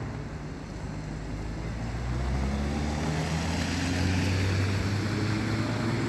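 Cars driving past on a snow-covered road, engines and tyres growing louder about two seconds in as they come close.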